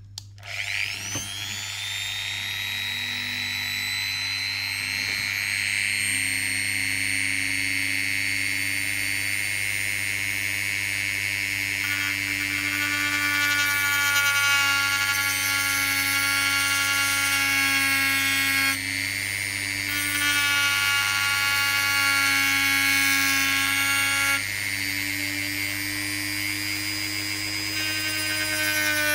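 Handheld rotary tool spinning up with a rising whine, then running at high speed with a steady high whine as its thin grinding disc grinds away a blob of diecast metal. Its tone changes abruptly a few times as the disc works.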